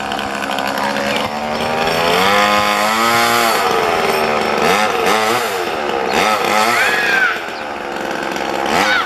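Gas chainsaw running hard while cutting through a large tree limb, its engine pitch rising and dipping again and again as the chain bites. The revs drop for a moment about seven seconds in, then climb again.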